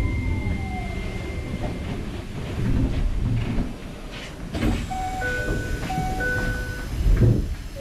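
Train standing at a station, its low rumble steady, then about five seconds in a clear two-tone chime sounds twice, typical of a Japanese train's door-closing chime. A heavy thud follows near the end.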